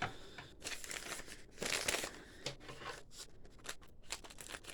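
Plastic packaging rustling and crinkling as it is handled, with a louder burst of crackling about two seconds in.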